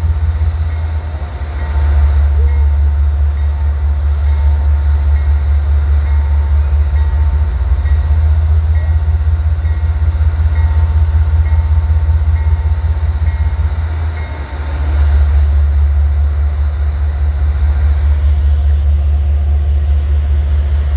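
Amtrak GE Genesis P32AC-DM diesel locomotive running with a steady low rumble. A faint high tick repeats a little under twice a second and stops about two-thirds of the way through.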